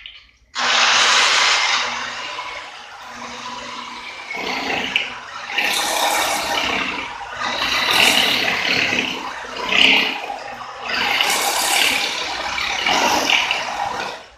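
Electric drill boring a hole into the wall, starting about half a second in and running hard, its grinding noise swelling and easing every second or two as pressure is put on, then stopping just before the end.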